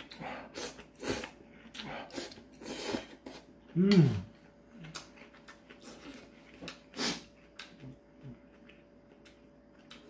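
A man slurping ramyeon noodles and chewing them with wet mouth smacks, with sharp intakes through the noodles at several points. About four seconds in comes a short voiced grunt that rises then falls, the loudest sound, and another loud slurp or breath follows about seven seconds in.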